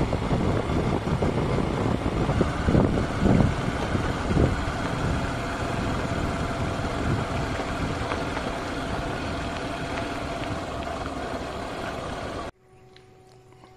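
A moving vehicle's engine running with wind rushing over the microphone as it drives along a road: a loud, rough, steady noise with a few louder bumps a few seconds in. It cuts off suddenly near the end, leaving only a faint, quiet background.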